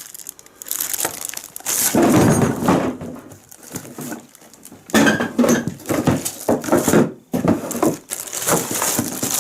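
Packaging rustling and hard items knocking as a tool kit is unpacked by hand, in irregular bursts with a few short knocks.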